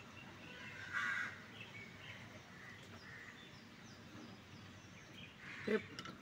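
Faint outdoor background noise with bird calls: a short harsh call about a second in and a brief louder call near the end.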